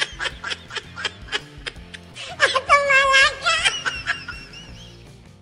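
A woman laughing in quick, repeated bursts, breaking into a longer, high-pitched laugh about two and a half seconds in, over background music.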